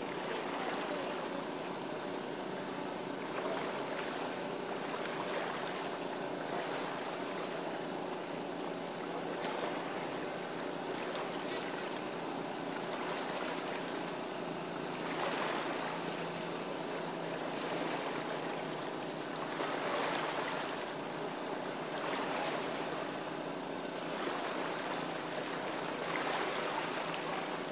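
A steady engine hum under a wash of water and wind noise that swells several times, most strongly around the middle and near the end.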